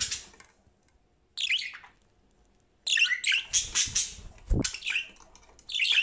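Budgerigar chirping and chattering in short bursts of quick, high calls, busiest around the middle, with a dull thump about four and a half seconds in.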